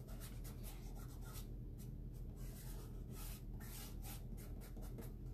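Faint, irregular short scratchy rubbing strokes of hand craft work on a stencilled board, over a low steady hum.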